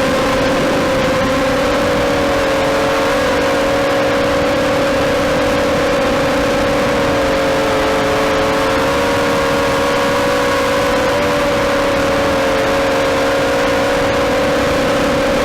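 FPV quadcopter's electric motors and propellers buzzing steadily, several close pitches wavering slightly up and down.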